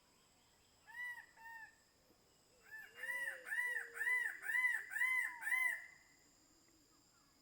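King bird-of-paradise (Cicinnurus regius) calling: two short notes, then a run of about seven more at roughly two a second, each note rising and then falling in pitch.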